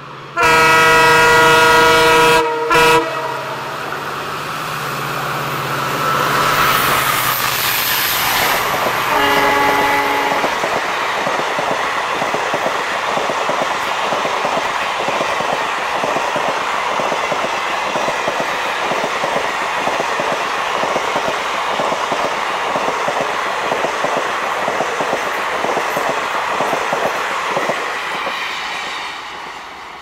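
Diesel locomotive's air horn sounding one loud blast of about two seconds and a short second blast, then a shorter, lower blast about nine seconds in. After the locomotive passes, the coaches of an express train run by at speed with a steady rumble and clickety-clack of wheels, fading near the end.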